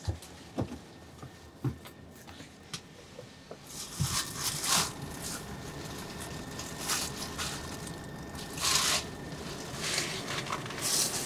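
Fabric rustling and small handling clicks close by in a bus cabin, with sharper rustles around four to five seconds in, near nine seconds and near the end, over a steady low cabin hum.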